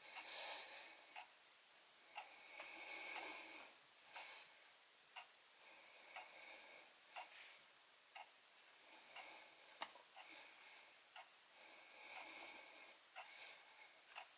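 Faint, sharp clicks about once a second, one louder near the end, over soft hissing swells that come every few seconds.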